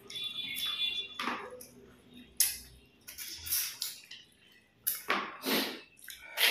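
Close-up eating sounds of two people eating katla fish head and rice with their fingers: a handful of short, irregular wet mouth noises (smacks and sucks) as they chew.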